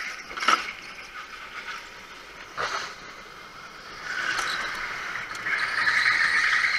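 Indoor go-kart at speed on a smooth concrete track, its tyres squealing through the corners, with two sharp knocks about half a second and two and a half seconds in.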